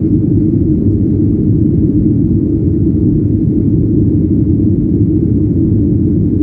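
Steady low rumble of a Boeing 737's jet engines and airframe, heard muffled from inside the passenger cabin.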